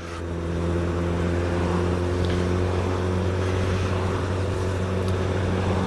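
Suzuki GSX-S1000's inline-four engine with a Yoshimura exhaust, running at steady revs under way, with wind rush over the microphone. It swells during the first second, then holds an even note.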